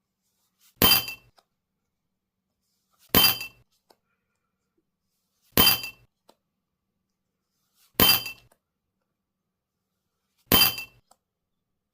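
A short glassy clink with a brief crunch and ringing tones, repeated five times at an even pace of about one every two and a half seconds, identical each time, with dead silence between: an added sound effect played for each card reveal.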